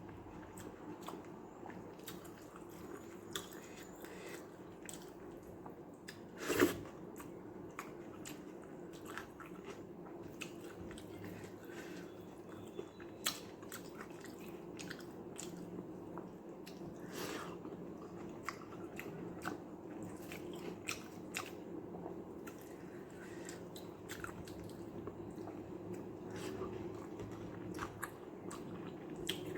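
Close-up eating sounds of white rice mixed with watery sambar: chewing, smacking and soft wet squishes, with scattered small clicks and one louder smack about six and a half seconds in. A steady low hum runs underneath.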